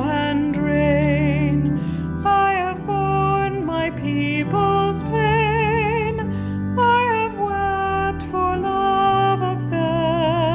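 A hymn sung by a solo voice with marked vibrato on held notes, over steady instrumental accompaniment.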